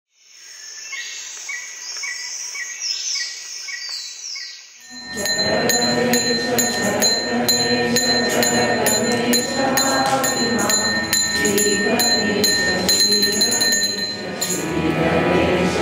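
Birds calling for about five seconds, with short repeated chirps and falling whistles. Then, about five seconds in, group devotional chanting starts suddenly over steady rhythmic metallic strikes, with a high ringing tone held under it.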